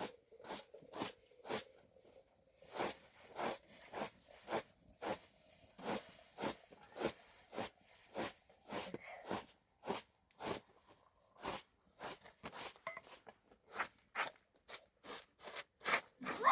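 A steady run of short, sharp crunching knocks, about two a second, unevenly spaced.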